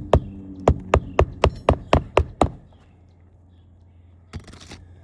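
A hammer driving a roofing nail through a replacement shingle into the roof decking: about nine quick strikes, roughly four a second, that stop about two and a half seconds in. A brief rustle follows near the end.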